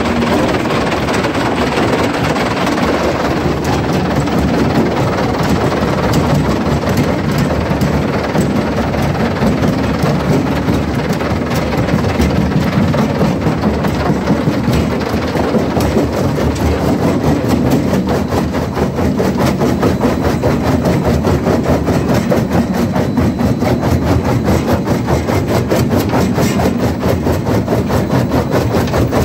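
RM J110 mobile jaw crusher running under load, with rock feeding over its vibrating feeder into the jaw and being crushed. It makes a loud, steady clatter with a fast, even rattle running through it.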